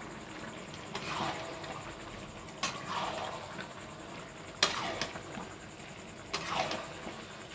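Metal spatula stirring and scraping chilli chicken with capsicum and onion around a black kadai, a scrape every couple of seconds.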